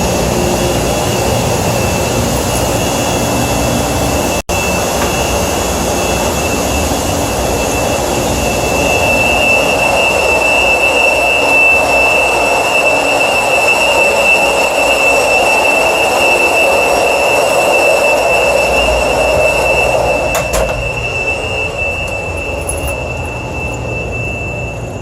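Steady machinery noise with a constant high-pitched whine. It grows a little louder about nine seconds in and eases off over the last few seconds, with a momentary cut-out about four seconds in.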